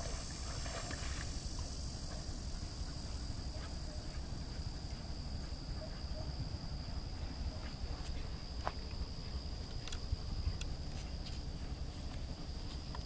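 Outdoor ambience: a low rumble of wind on the microphone under a steady high-pitched drone, with a few faint splashes in the first second or so as a Labrador retriever climbs out of the pond onto the bank.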